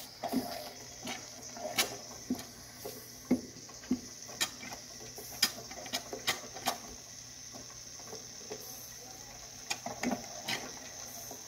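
Jensen 50 toy steam engine starting from cold: irregular sharp spits and clicks as condensed water is blown out of the cold cylinder, over a steady high hiss.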